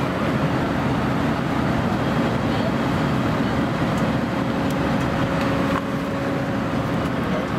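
Steady in-flight cabin noise of an Airbus A320-family airliner: the even rush of airflow and engines, with a low steady hum underneath.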